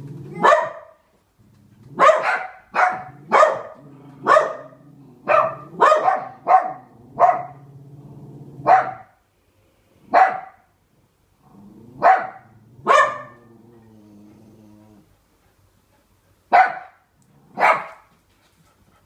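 A dog barking again and again, about seventeen sharp barks, in a quick run through the first half and then more spaced out. Low growling carries on between the barks.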